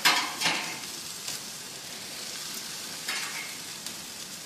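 Marinated pork chops sizzling on a hot gas grill, a steady hiss with a few short louder flares near the start and about three seconds in.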